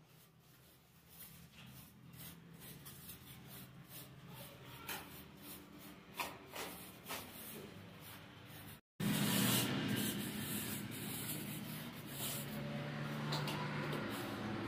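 Hands and an aluminium straightedge scraping and smoothing a wet sand-and-cement mortar bed: soft gritty scraping with scattered faint knocks. After a brief cut about nine seconds in, a louder steady hiss with a low hum takes over.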